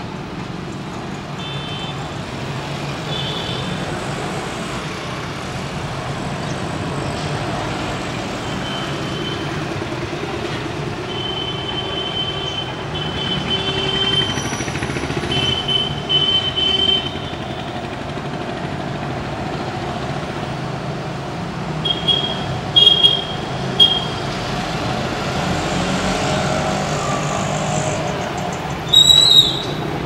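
Steady hum of distant city traffic, with short high-pitched chirps of small birds scattered over it; the chirps come louder in a quick cluster about two-thirds of the way through and again just before the end.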